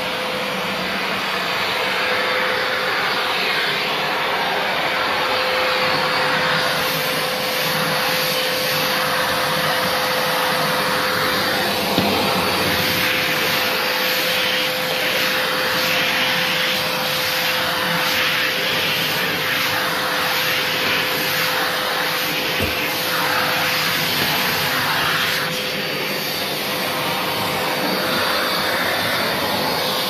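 FCM Soteco commercial vacuum cleaner running steadily, its motor holding a steady whine under the rush of air, while the floor tool is pushed back and forth over a laminate floor, the suction noise swelling and easing with each stroke. A sharp click about twelve seconds in and a short knock a little later.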